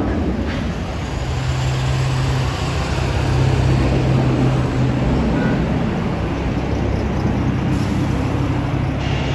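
Aircraft engines running: a steady loud drone with a low hum held throughout.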